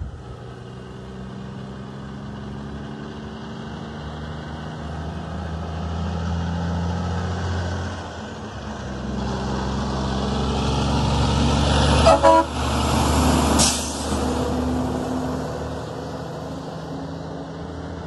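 Diesel semi-trailer truck pulling away and accelerating past, the engine note climbing, dropping briefly at a gear change about halfway, then climbing again. As it passes it gives a short toot of the horn, followed by a sharp burst of noise, then the engine fades into the distance.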